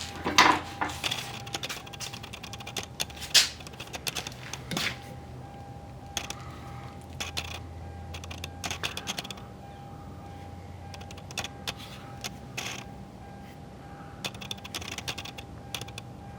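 Irregular clicks and light knocks of the car door's exterior handle assembly being handled and fitted, plastic and metal parts tapping and snapping, over a faint steady hum.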